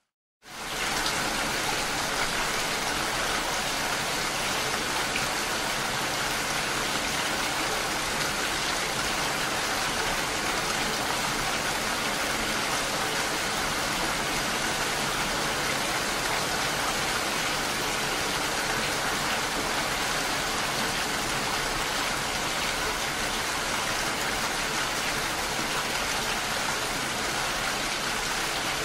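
Steady, even rain, a continuous hiss of falling water. It cuts in abruptly after a brief silence at the very start.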